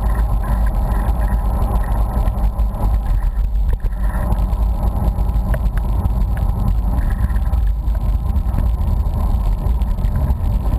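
Steady low rumble of wind and road noise on the microphone of a camera riding along on a bicycle.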